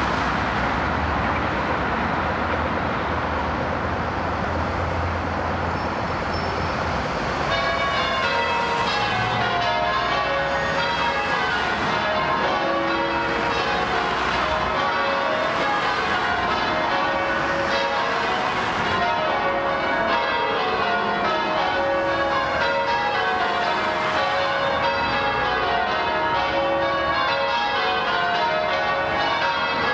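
Road traffic noise, then about seven seconds in a ring of church bells starts change ringing. Each run of strikes steps down in pitch from high to low and repeats over and over, with the traffic still faintly underneath.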